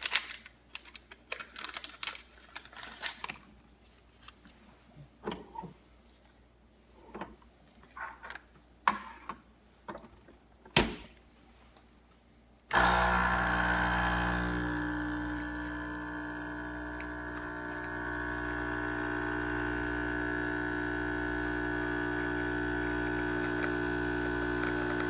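Clicks and knocks as the pod espresso machine is handled for the first half. About halfway through, the machine's pump starts abruptly and runs with a steady buzzing hum as the espresso brews.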